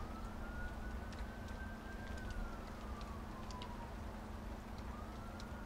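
A siren wailing faintly: a single tone that slowly rises, holds and falls, then starts rising again near the end. Under it a steady hiss of rain with scattered drip ticks.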